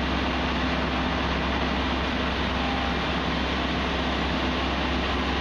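Case tracked excavator's diesel engine running steadily while digging silt out of the riverbed: a low hum under an even rushing noise.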